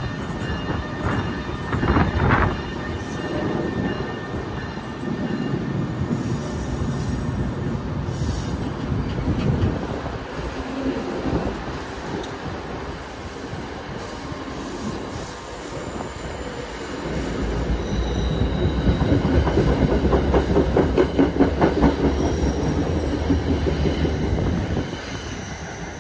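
NJ Transit train, an ALP-46 electric locomotive hauling coaches, pulling out of the station and rolling past: steel wheels rumbling and clicking over the rail joints. The clicking builds into a rapid, steady clatter, loudest in the last several seconds, then eases off just before the end.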